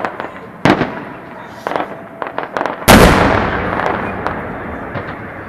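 Fireworks shells bursting overhead: a sharp bang about half a second in and a few smaller pops, then the loudest boom near the middle, which rumbles and echoes away over the next two seconds.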